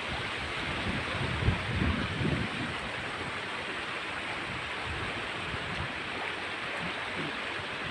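Steady rush of flowing river water, with a few low thumps about a second and a half to two and a half seconds in.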